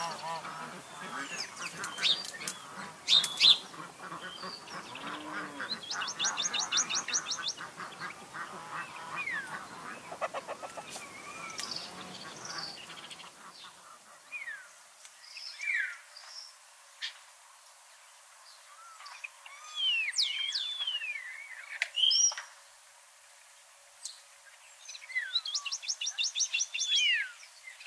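Wild birds calling: assorted chirps, sweeping whistled notes and two rapid high trills, over a low background ambience that drops out about halfway.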